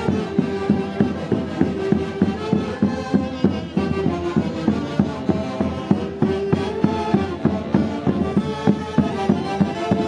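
A band plays traditional festival music, with melody instruments carrying sustained lines over a steady beat.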